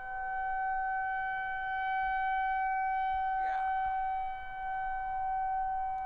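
Outdoor tornado warning siren sounding one steady high tone with overtones, its loudness slowly swelling and fading, with a brief dip about four and a half seconds in.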